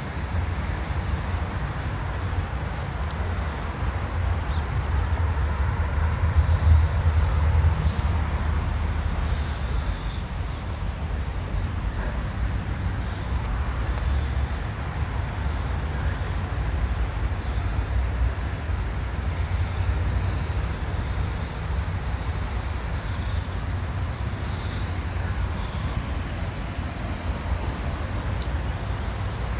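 Steady low rumble of outdoor background noise, heaviest in the deep bass, with small swells in loudness.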